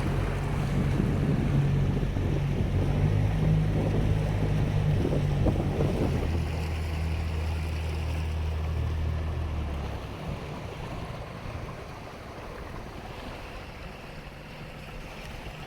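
Boat motor running under way, dropping to a lower, slower pitch about six seconds in and then falling away about ten seconds in as the boat comes in to land. Wind and water noise runs underneath.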